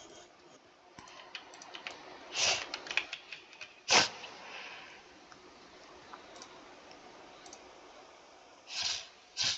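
Computer keyboard keys being pressed in scattered, irregular keystrokes, with a small flurry of clicks about two and a half seconds in and one sharp, loud clack about four seconds in.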